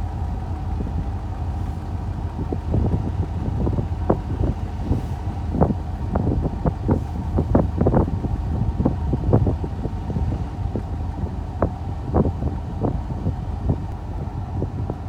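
A vehicle running with a steady low rumble, with frequent short rattles and knocks, as from driving over rough or frozen ground.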